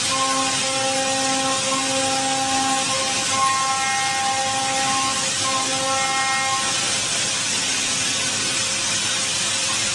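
CNC vertical turning centre running and machining metal: a steady hiss with a few held, whining tones that come and go over the first several seconds.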